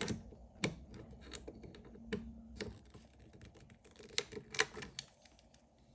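Light, irregular clicks and taps of small metal parts being handled and fitted: the toothed jaw pieces of a rivet gun being set into their grooves in the nosepiece.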